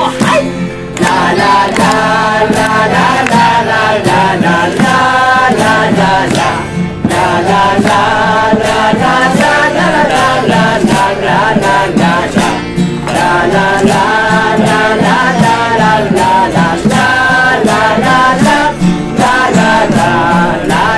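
A group of voices singing together to a strummed acoustic guitar: a live sing-along.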